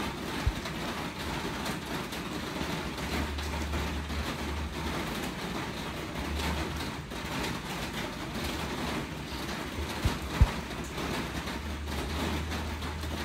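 Steady rain, an even hiss of drops, with a low rumble that comes and goes underneath. A few short dull thumps, one about half a second in and two close together about ten seconds in.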